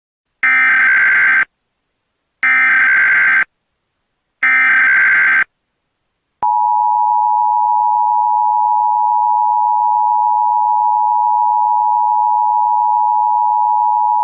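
Emergency Alert System SAME header: three one-second bursts of warbling digital data tones, about a second apart. Then the EAS two-tone attention signal (853 and 960 Hz together) sounds steadily for about eight seconds, marking the start of an emergency alert, here a Required Monthly Test.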